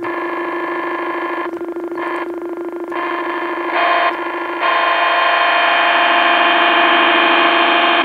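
Circuit-bent electronic keyboard holding a steady low drone while harsh buzzy electronic tones cut in and out abruptly, several short bursts and then one long stretch from about halfway through.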